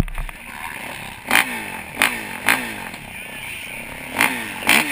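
Kawasaki KX450 dirt bike's four-stroke single-cylinder engine idling, with the throttle blipped five times. Each time the revs jump sharply and then fall back to idle.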